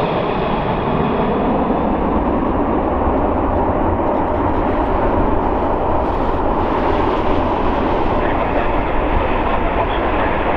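Jet noise from a Boeing 747-400 freighter's four Rolls-Royce RB211-524 turbofans at approach power: a steady, loud rumble as the airliner passes overhead and sinks toward the runway.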